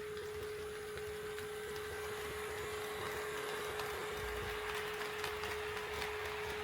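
Model level-crossing warning sounder giving a steady electronic tone, while an HO-scale model train runs over KATO Unitrack. The whirr and clatter of its wheels grows louder from about two seconds in, with clicks at the rail joints near the end.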